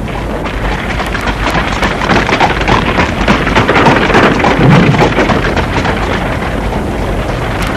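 A steady rushing noise with no pitch, growing a little louder around the middle.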